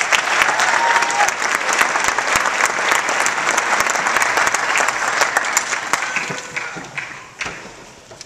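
Audience applauding, a dense steady clapping that dies away over the last two seconds.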